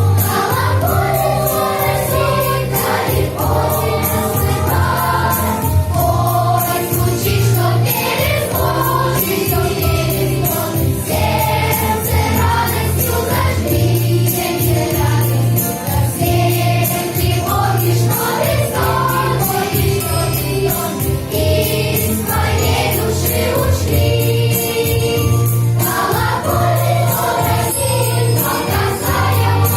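Choir singing a song over an instrumental backing track with a steady, regular bass line.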